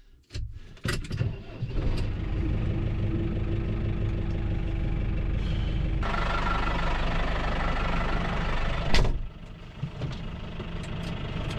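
Tractor engine starting and then running steadily, heard from inside the cab. There is a sharp clunk about nine seconds in, and the engine sound dips briefly after it.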